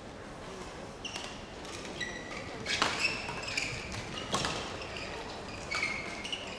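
Badminton rally: a racket strikes the shuttlecock with a sharp crack about three seconds in and again a second and a half later. Short high squeaks of court shoes on the floor come and go around the hits.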